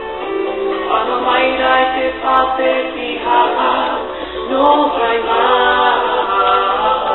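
Music with singing voices, continuous and fairly loud.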